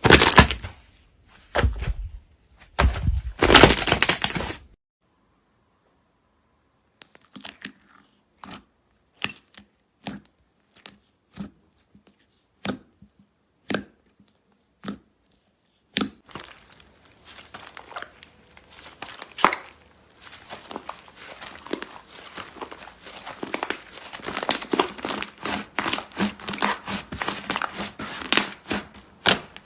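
Hands playing with slime: a few loud squishing strokes, then a short quiet gap, then scattered sharp pops and clicks that thicken after about sixteen seconds into dense crackling.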